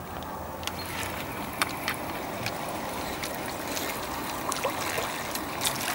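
Water splashing and trickling at the pond surface as a hooked crucian carp is pulled in on a float rod: a steady wash with scattered sharp little splashes.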